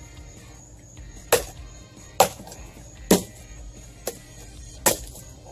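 A Husqvarna hatchet chopping into a dead branch: five sharp strikes a little under a second apart, the fourth lighter than the rest.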